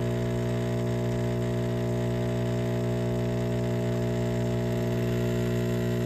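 Philips 3200 Series fully automatic espresso machine's pump humming steadily, pushing hot water through the ground coffee to brew the second shot of a double espresso.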